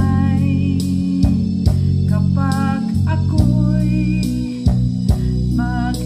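A woman singing with wavering held notes over a backing track of guitar, bass and drums.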